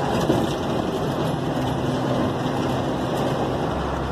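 Truck engine running while driving, heard from inside the cab: a steady drone with road noise, its low hum growing stronger near the end.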